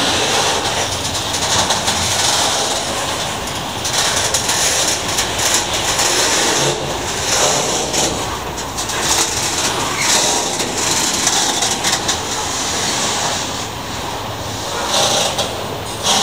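Container freight train rolling past, its wagons rumbling and clattering over the rails in a steady wash of noise.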